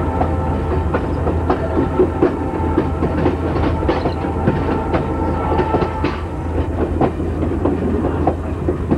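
Passenger car wheels rolling along jointed track, with a steady low rumble and irregular clicks and knocks as the wheels cross rail joints.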